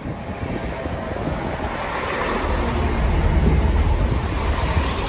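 Chiltern Railways Class 165 diesel multiple unit running past along the platform: underfloor diesel engine rumble and wheels on rail, growing louder to a peak about three seconds in.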